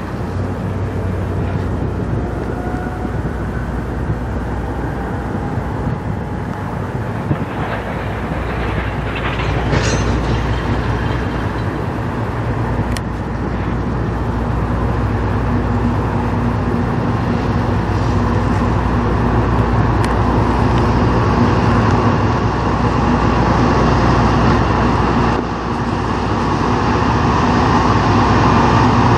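CN diesel-electric freight locomotives approaching slowly at the head of a freight train, engines rumbling steadily and growing louder as they draw near, with wheel-on-rail noise and a few sharp clanks.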